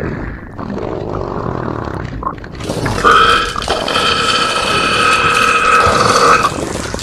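A woman's long, loud burp: after a rough, noisy start, it settles about three seconds in into one steady pitch held for some three and a half seconds, then cuts off.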